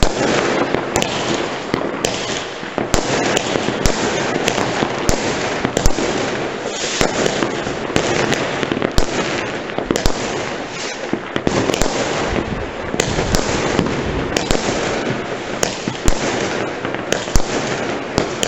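Fireworks going off in quick succession: a dense, continuous crackling with frequent sharp bangs and pops.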